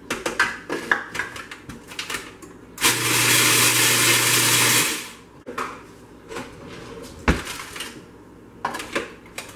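Countertop food processor running for about two seconds with a steady motor hum, grinding pretzels into crumbs. Clicks and knocks from handling the machine come before and after, with one sharp knock near the end.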